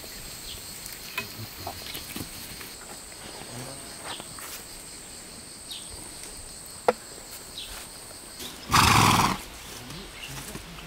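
A faint, steady, high-pitched drone and a few light clicks, then near the end one loud, short animal call lasting about half a second, which is the loudest thing heard.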